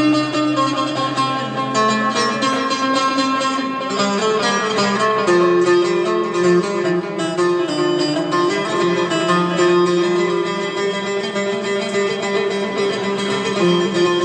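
Music played on plucked string instruments, running continuously with many quick plucked notes over held tones.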